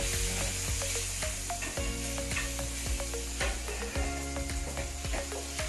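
Butter sizzling as it melts in a hot pan, with a wooden spatula scraping and tapping against the pan in many short clicks as it is stirred.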